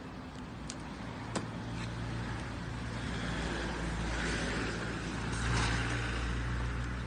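Steady low hum of road traffic, with a few light clicks about a second in and a soft rustle later as the steel frame and fabric of a folding wagon are collapsed.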